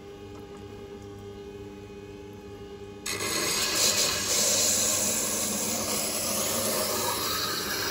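Scheppach Tiger 3000 VS wet-stone grinder running with a steady low hum. About three seconds in, a knife blade held in the jig is set on the wet stone and a steady grinding hiss starts up.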